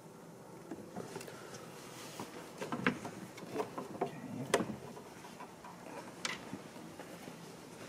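Scattered light clicks and taps of hard plastic as the housing of an electronic bidet seat is handled and its cover brought down over the exposed control board. The sharpest tick comes about four and a half seconds in.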